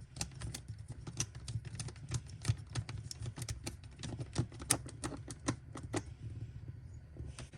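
Rapid, irregular clicking and tapping, about four or five sharp clicks a second, that mostly stops about six seconds in.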